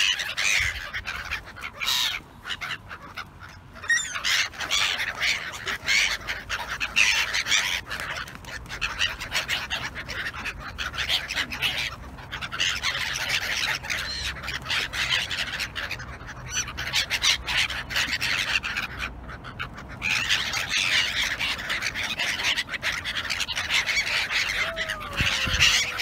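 A flock of black-headed gulls calling over one another in a dense, continuous chatter of harsh cries, dropping off briefly a few times: excited calling as they crowd in for food.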